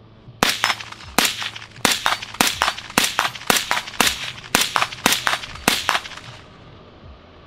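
About ten rapid semi-automatic shots, roughly two a second, from an AR-10 rifle fitted with a HUXWRX Ventum 7.62 flow-through suppressor, each with a short echo, stopping about six seconds in.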